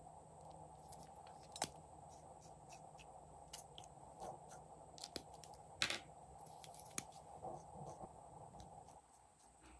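Scattered small clicks and taps from plastic makeup tubes being handled and dabbed onto slime, the loudest about one and a half and six seconds in, over a faint steady hum.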